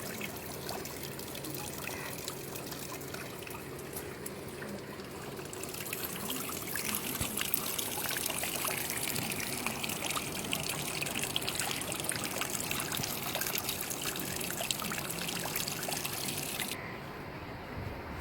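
Water trickling and splashing, turning into a louder, hissing spray about six seconds in that stops suddenly near the end.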